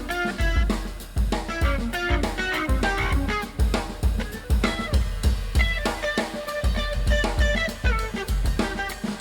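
Background music: an upbeat instrumental track with a drum kit beat, plucked guitar and bass.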